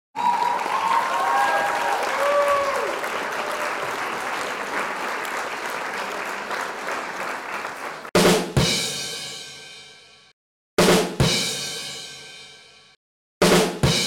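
Music with drums: a dense, noisy wash with a few whistle-like glides for about eight seconds. Then come three loud drum-and-cymbal hits about two and a half seconds apart, each a quick double strike that rings out and then cuts off suddenly.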